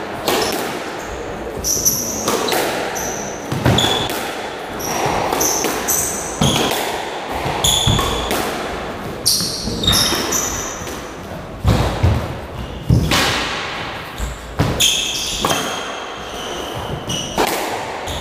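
Squash rally in an enclosed court: the ball knocking off rackets and walls every second or two, with sneakers squeaking on the wooden floor between shots.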